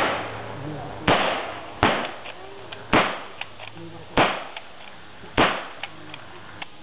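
Blank rifle shots, six single reports about a second apart at irregular intervals, each followed by a short echoing decay. These are single shots from several bolt-action rifles, not a machine-gun burst.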